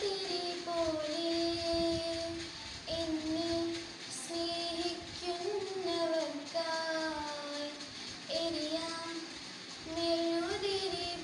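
A young girl singing a slow prayer song solo, one voice without accompaniment, holding long notes and sliding between them.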